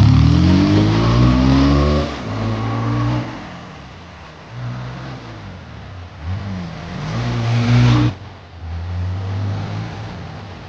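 Bajaj Pulsar 220F's single-cylinder engine revving, its pitch rising and falling several times, then dropping sharply in level about eight seconds in and running on lower.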